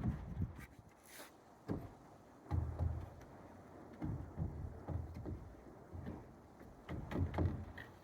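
Irregular dull thumps and knocks, roughly one a second, with a few sharper clicks, from hands-on work on a timber-framed cabin.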